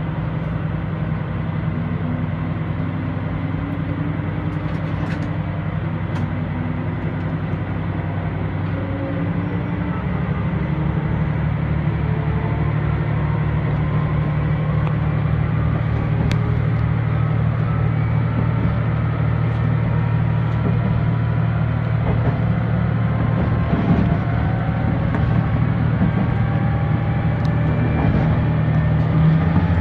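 HOT7000-series diesel railcar accelerating away: a steady low engine drone that grows louder about ten seconds in, with whining tones climbing slowly in pitch as the train gathers speed.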